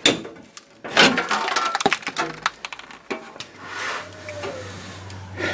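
Hand work on the underside of a car: a run of sharp clicks and knocks, metal on metal, with a low steady hum coming in about halfway.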